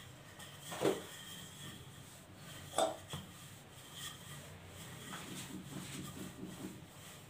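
Hands turning and sliding a large stack of rolled, floured dough on a wooden counter: faint rubbing throughout, with two dull knocks, one about a second in and one about three seconds in.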